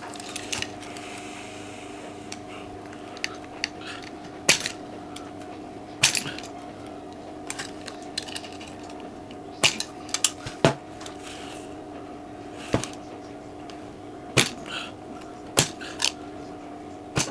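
Irregular clicks, taps and clatters of small tools and objects being handled on a workbench, about a dozen sharp knocks spread unevenly, over a steady low electrical hum.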